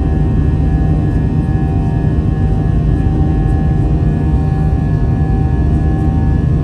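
Airbus A320 in its climb after takeoff, heard inside the cabin beside the engine: a steady low jet-engine drone with several constant whining tones above it.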